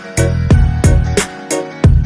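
Background music with a steady beat, drum hits about three times a second over bass and guitar.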